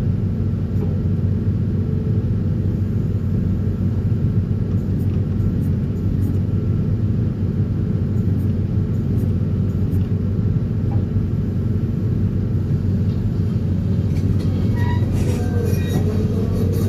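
DPD350T vibratory pile hammer (vibro hammer) on an excavator vibrating a steel sheet pile into the ground: a loud, steady low hum and rumble, with a few short high squeals near the end.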